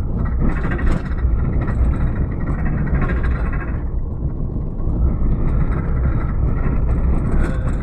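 Car driving along a rough, stony dirt track, heard from inside the cabin: a steady low engine and road rumble with tyre noise from the gravel.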